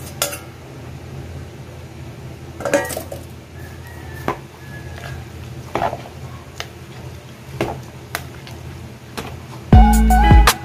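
A utensil clinking and knocking against a bowl while beaten egg and chopped eggplant are mixed, a few scattered clinks over a low steady hum. Background music comes in near the end.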